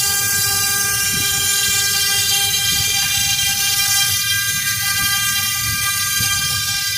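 CNC router's spindle running at speed, a steady high whine made of several even tones over a loud hiss, holding level throughout.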